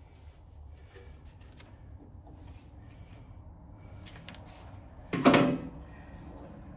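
Faint clicks and rustles of hands and tools working on fuel hose fittings, then one loud short clunk about five seconds in.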